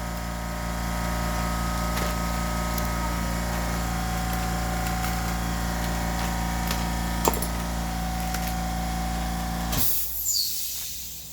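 A steady mechanical hum with a few light metallic clicks from clutch parts being handled. The hum cuts off abruptly near the end.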